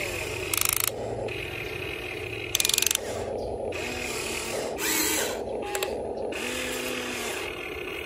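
Electric motors and gearboxes of a Huina 1550 RC excavator whirring as it slews and moves its boom and arm, with short spurts of a fast, ratchet-like buzz about half a second and two and a half seconds in, and another louder spurt about five seconds in.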